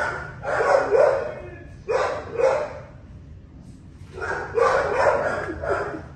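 Dog barking in a kennel block, the barks echoing off the walls: two barks about a second in, two more about two seconds in, then a longer run of four or so near the end.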